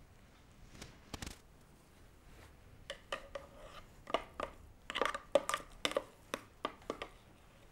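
Spatula scraping and knocking inside a plastic food processor bowl. A couple of faint clicks about a second in, then a quick run of a dozen or so sharp knocks with a brief ringing tone over the next four seconds.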